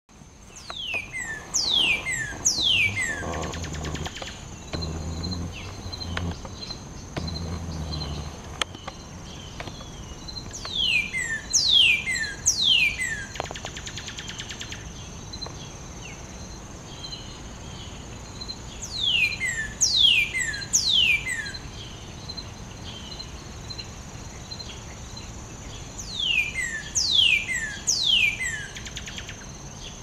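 Male northern cardinal singing: four phrases, each of three or four loud whistled notes that slur steeply downward, repeated about every eight seconds. The song sits over a steady high-pitched drone.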